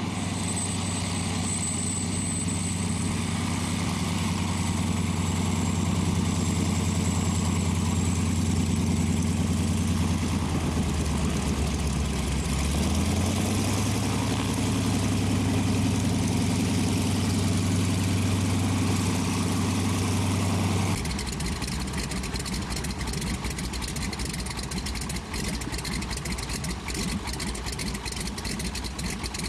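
Biplane's piston engine running as it taxis close past, getting louder as it nears, its note dipping and then settling a little higher about halfway through. After an abrupt change about two-thirds of the way in, an aircraft engine idles with an uneven, pulsing beat.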